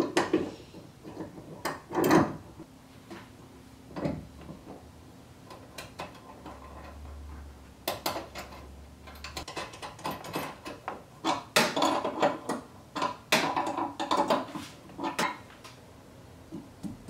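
Metal clinks and knocks of hand tools, bolts and steel brackets being handled while ditch lights are mounted at a truck's hood hinge. A steady low hum runs for a few seconds in the first half, and the clicks and clanks come thicker in the second half.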